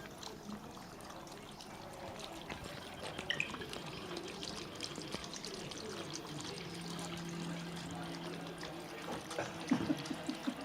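Water running and trickling, with many small scattered clicks and a few louder knocks near the end.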